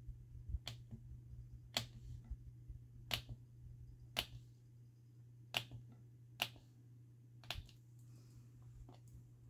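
About seven sharp, isolated clicks at uneven gaps of roughly a second, from tools or tiles being set down and tapped on a hard craft work surface while polymer clay tiles are worked, over a low steady hum.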